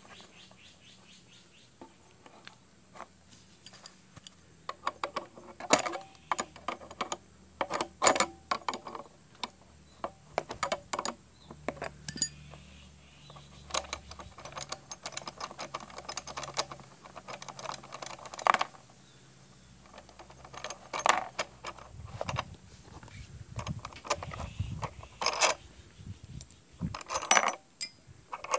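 Small steel parts clicking and clinking as the seat-post clamp is unbolted and worked off the steel rails of a coil-sprung bicycle saddle. The clicks come irregularly, in clusters, with a few duller knocks shortly before the end.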